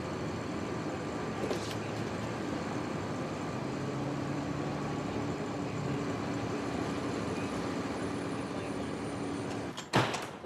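Steady vehicle noise, a constant rumbling hiss with a few faint held tones, broken near the end by one sharp bang.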